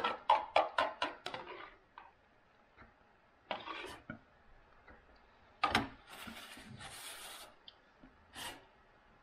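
A spoon tapping and scraping against a soup bowl in a quick run of about eight clicks, then a few single knocks. A crinkly rustle lasts about a second, a little past halfway.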